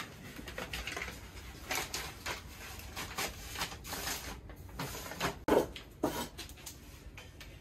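Irregular light knocks and clatter of wooden baking trays and frames being handled on a wooden workbench, with one sharper knock about five and a half seconds in.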